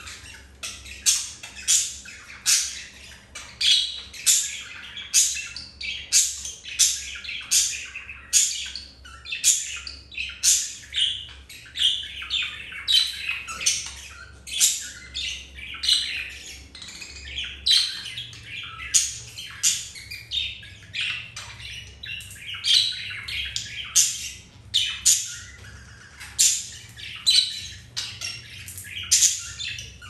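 Budgerigars making short, sharp chirping squawks over and over, about three every two seconds, while mating.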